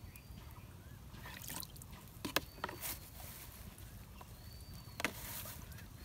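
A few short splashes and knocks from a caught fish and water being handled in a plastic bucket, the sharpest about two and a half seconds in and another about five seconds in. Under them runs a low steady rumble, with faint high chirps now and then.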